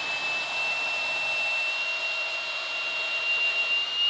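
Flex Turbo hammer drill running flat out in reverse with turbo mode on, backing a long lag screw out of a log: a steady high motor whine over the screw's turning, creeping slightly higher in pitch.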